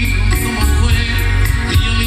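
Live grupero band music amplified over a concert sound system, with a steady beat of cymbal ticks about four a second under sustained instrument tones.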